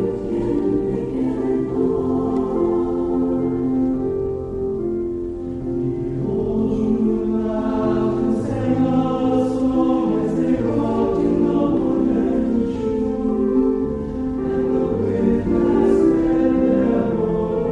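High school choir singing, several voice parts holding chords together.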